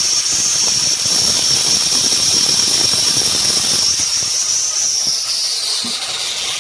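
Electric drill running with a loud high whine while drilling through the lawnmower motor's rotor shaft; about five seconds in the pitch slides down as the drill slows.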